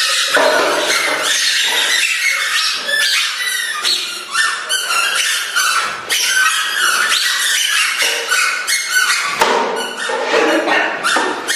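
Squeaky toys tied to people's feet squeaking with each step: a rapid, continuous run of short, high, overlapping squeaks.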